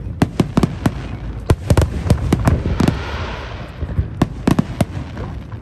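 Aerial fireworks display: shells bursting in quick, irregular bangs, some in tight clusters, over a steady low rumble. A hissing crackle comes through around the middle, where the bangs thin out, and a fast run of bangs follows near the end.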